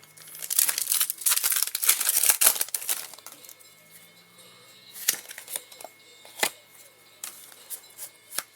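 Foil wrapper of a Pokémon TCG booster pack being torn open and crinkled for about three seconds, followed by scattered light clicks and rustles.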